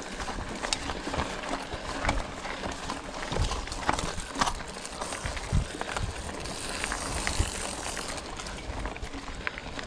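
Scott Spark 960 full-suspension mountain bike riding down a dirt singletrack: tyres rolling over dirt and dry leaves, with frequent short knocks and rattles from the bike over bumps.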